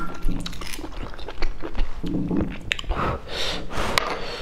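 Close-up eating sounds: wet chewing and mouth noises, with several sharp little clicks of a metal pick working sea-snail meat out of its shell.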